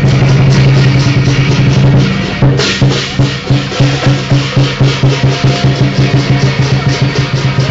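Chinese lion dance percussion: a big lion-dance drum with clashing cymbals and gong, played loudly. A continuous rolling passage breaks about two and a half seconds in, with a cymbal crash, into a steady, even beat of about three strokes a second.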